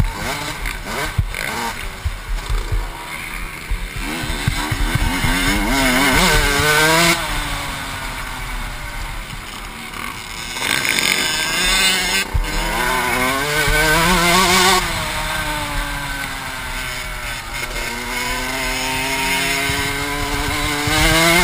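Motocross bike's engine under hard acceleration, heard from the rider's helmet, its pitch climbing, dropping at each shift or lift off the throttle, and climbing again several times.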